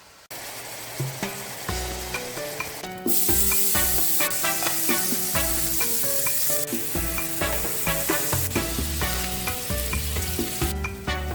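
Ground pork sizzling loudly in a hot frying pan, starting about three seconds in and stopping shortly before the end, over Latin jazz background music.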